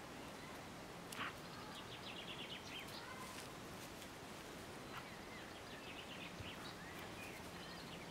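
Faint birdsong: short chirps and quick trills from small birds over quiet background noise.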